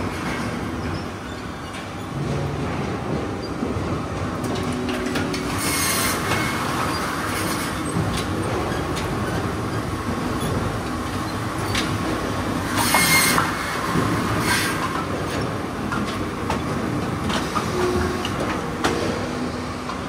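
Automated firewood processing line running, with conveyors feeding logs to a saw that cuts them to length. The machine noise is steady, with short high-pitched hissing bursts about six and thirteen seconds in.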